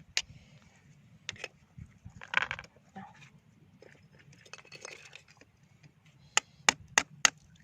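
Oyster shells clicking and clinking as they are handled and dropped into a box, with a quick run of four sharp clicks near the end.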